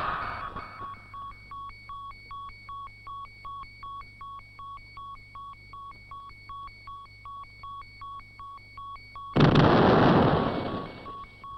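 Ultraman Ace's Color Timer giving its warning: an electronic beep repeating about two and a half times a second over a low hum. About nine seconds in, a loud explosion cuts in and dies away over a second or so while the beeping goes on.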